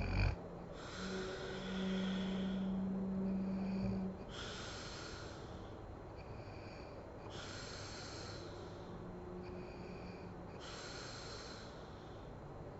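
A sleeping woman snoring, with a breath about every three seconds. A low humming snore is held through the first four seconds, then only softer, hissing breaths follow.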